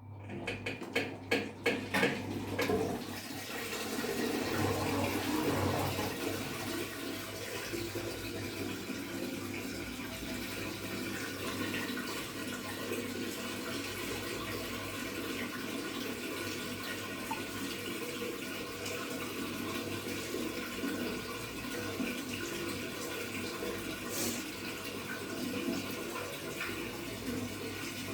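LG top-load washing machine starting up: a quick run of clicks over the first couple of seconds, then water pouring steadily into the tub with a low steady hum underneath.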